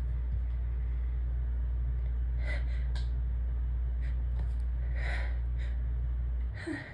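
A steady low rumble that drops away about six and a half seconds in, with several short, sharp catching breaths over it: a sneeze building up without yet coming.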